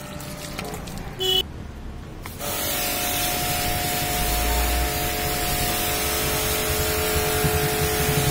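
Pressure washer spraying water onto a car: the spray starts suddenly about two and a half seconds in and runs on as a steady hiss with a steady tone under it. A brief high beep sounds just over a second in.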